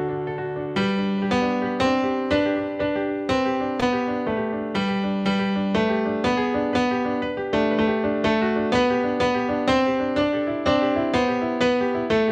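Piano music: a slow, steady melody over a bass line, with notes struck about twice a second and each fading away after it sounds.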